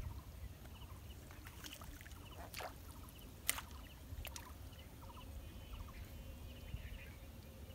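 Faint outdoor ambience: a steady low rumble with short high bird chirps recurring now and then, and a few sharp clicks, the loudest about three and a half seconds in.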